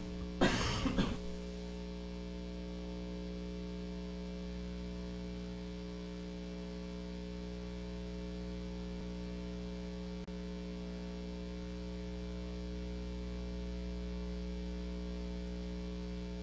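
Steady electrical mains hum, a low buzz with a stack of even overtones, on the meeting's sound system. A brief bit of speech comes about half a second in.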